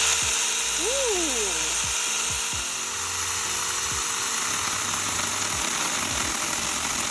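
21V battery-powered mini chainsaw running steadily with the trigger held, its electric motor and chain giving a high, even whir.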